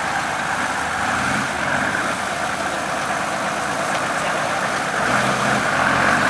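Off-road Mercedes G-Class 4x4's engine idling steadily, getting a little louder about five seconds in.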